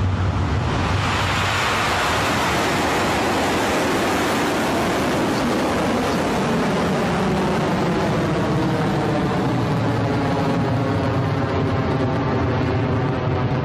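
Electron rocket's nine Rutherford first-stage engines firing at liftoff and through the first seconds of climb: a loud, steady rushing rumble. It swells about a second in and turns hollow and wavering in the later seconds.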